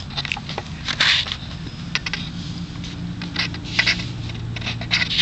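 Paper rustling and crackling in short scrapes as notebook pages are handled and turned, over a steady low hum.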